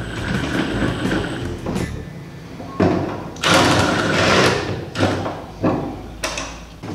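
A Milwaukee FUEL cordless power driver runs the caster-wheel mounting bolts into a steel tool chest in several short runs, its motor whining between bursts of loud driving noise.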